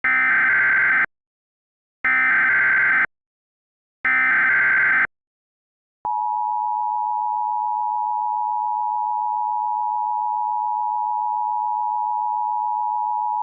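Emergency Alert System tones. First come three one-second bursts of SAME header data, a screeching digital warble, each separated by about a second of silence. Then, about six seconds in, the EAS attention signal starts: a steady, harsh two-tone hum of 853 and 960 Hz.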